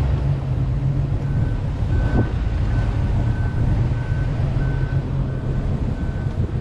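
Boat engine running steadily at low speed, with a regular electronic beep sounding about three times every two seconds from about a second in.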